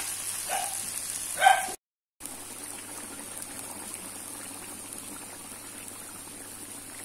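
Beef curry sizzling in oil in a wok, with a brief loud voice-like sound about one and a half seconds in. After a short drop-out near two seconds, the curry boils steadily in its broth.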